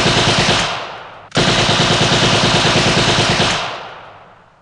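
Machine-gun fire in two long bursts of rapid shots: the first dies away about a second in, the second starts abruptly about a second later and runs for about two seconds before fading out.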